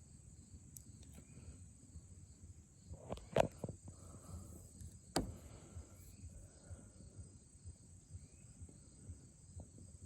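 Crickets chirping steadily in the background, with a few sharp clicks and taps from a pocket knife being handled, the loudest about three and a half and five seconds in.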